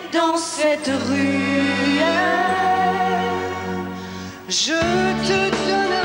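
A male voice sings a long, held melodic line over orchestral accompaniment. The backing chord changes about a second in, and again near the end after a brief breath.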